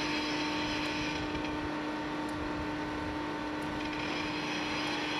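Railway snowplow train running steadily: a constant engine hum over a broad rumbling noise.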